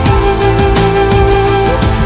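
Background music: a held melodic line over a steady beat.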